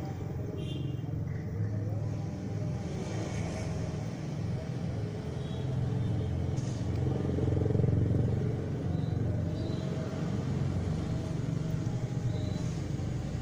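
Motor vehicle traffic from the street: a low engine rumble that swells to its loudest about eight seconds in and then eases off, as a vehicle passes.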